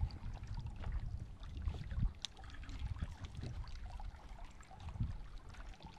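Small waves lapping against a bass boat's hull, with an uneven low wind rumble on the microphone and faint scattered clicks, one sharper tick about two seconds in.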